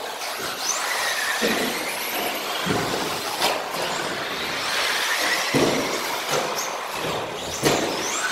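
Radio-controlled electric buggies running on an indoor carpet track: motors whining and sweeping up and down in pitch with the throttle, over a constant hiss of tyres, with several sharp knocks.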